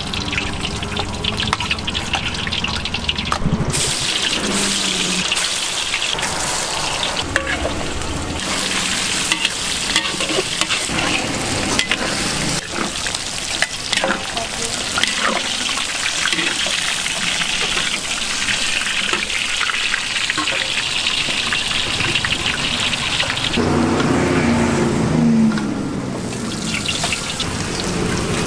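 Cubes of yellow tofu frying in hot oil in a large wok: a steady, crackling sizzle that sets in about four seconds in. Near the end, a low droning sound lasts about two seconds.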